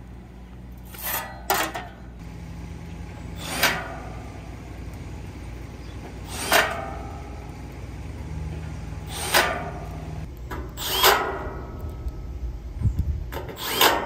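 Sharp clacks of tools and metal parts being handled while the compressor wiring is reconnected, about eight, a few seconds apart, each with a brief ring. A short low hum comes twice between them.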